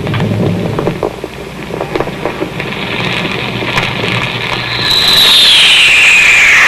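Rocket-ship sound effect: a steady rushing roar with scattered crackles. About five seconds in, a loud whistle joins it, falling steadily in pitch as the whole sound grows louder.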